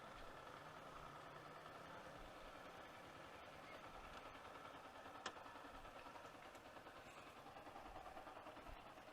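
Near silence: a faint steady background hum, broken by a single sharp click about five seconds in.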